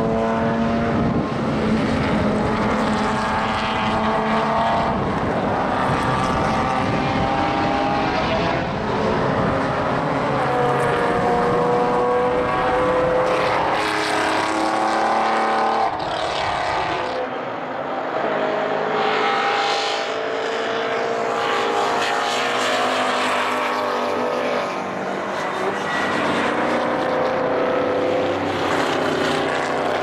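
Historic racing cars' engines passing at full throttle, several at once, the pitch climbing repeatedly and dropping at each gear change. A heavy wind rumble on the microphone in the first half stops suddenly partway through.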